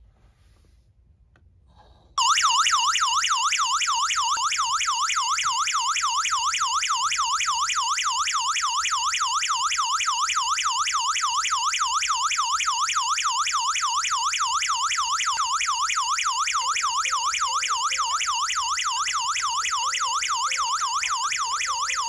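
Burglar alarm panel siren sounding after a door sensor is triggered on the armed system: a loud electronic warble sweeping rapidly up and down in pitch, starting suddenly about two seconds in. It cuts off abruptly at the very end as the system is disarmed with the RFID keyfob.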